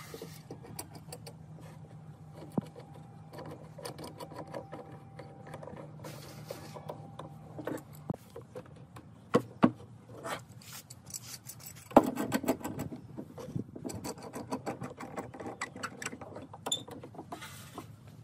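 Steel C-clamp screws being turned down by hand onto pine boards: metal threads clicking and rubbing, with knocks of wood and metal. The clicks come thick and fast from about two-thirds of the way in.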